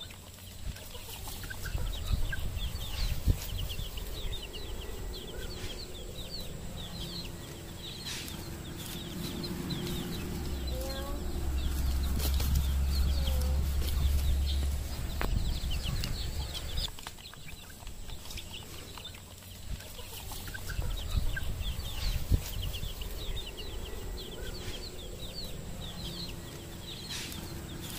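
A flock of chickens at feed: many chicks peeping in short high calls, one over another, with hens clucking. A low rumble underlies the middle of it for several seconds.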